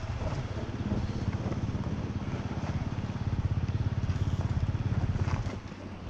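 Enduro motorcycle engine running at low revs with a fast, even pulsing. It picks up slightly past halfway, then the throttle closes about five and a half seconds in and it drops much quieter.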